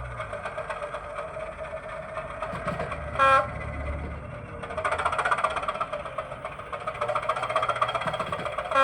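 Sound-decoder recording of a class 205 'Thumper' diesel engine idling with a fine rhythmic throb, played through the small speaker of a model train, growing louder about halfway through. A short loud tone sounds about three seconds in and again at the end.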